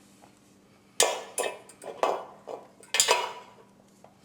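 Metal fireplace tools clanking against each other and their stand as they are put in place. The first second is quiet, then comes a run of about five sharp metallic clanks with short ringing over two and a half seconds.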